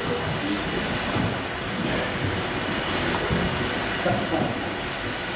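Steady hiss and rumble of brewhouse machinery, an even noise that holds at one level throughout.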